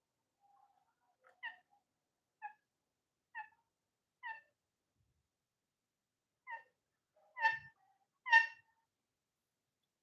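Indian ringneck parakeet giving a series of short, soft calls, about one a second with a pause midway, the last two the loudest.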